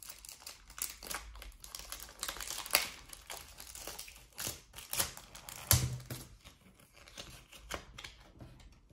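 Clear plastic wrapper of a football trading-card packet crinkling and tearing open, then the cards rustling and clicking as they are pulled out and handled; irregular sharp crackles, the loudest about three and six seconds in.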